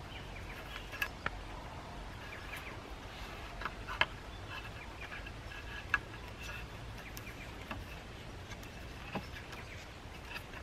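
Faint bird calls from the surrounding bush, with scattered light clicks and knocks from working on the timber pole frame.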